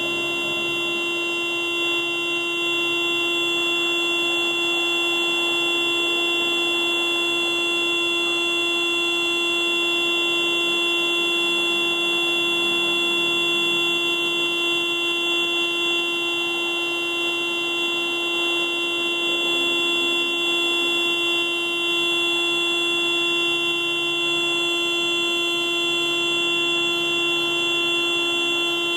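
Car alarm sounding as one loud, steady, unbroken horn-like tone that does not pulse or change pitch.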